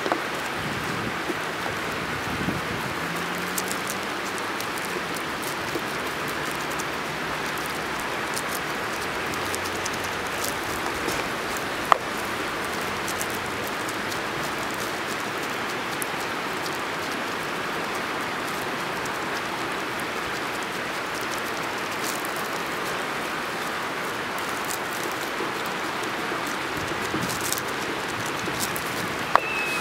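Steady rushing of river water, with a single sharp tap about twelve seconds in and another near the end.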